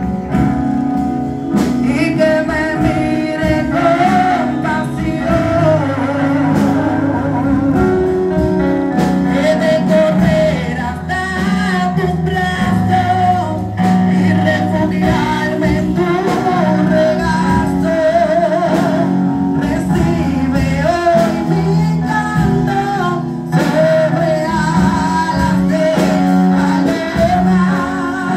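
A woman singing a gospel worship song into a microphone over live keyboard accompaniment, heard through the church's loudspeakers, her held notes wavering with vibrato.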